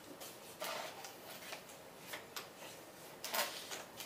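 A few light clicks and knocks, separate and roughly a second apart, from a metal air ratchet and socket being handled and fitted onto a nut.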